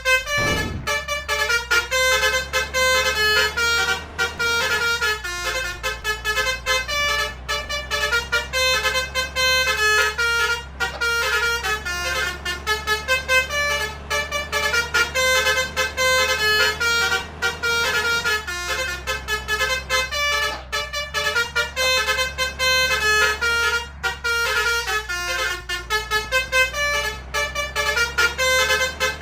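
Basuri 'telolet' multi-tone electric musical horn playing a fast melody of short notes without a break, over a steady low engine hum.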